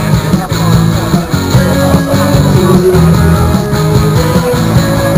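Loud rock music with a steady beat.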